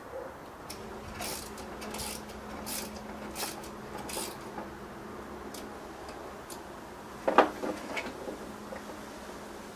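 Propeller nuts on an octocopter's motors being tightened by hand with a small metal tool: a row of short scraping strokes about every 0.7 seconds, then a sharp metallic clink a little past seven seconds in, with a few lighter clinks after it.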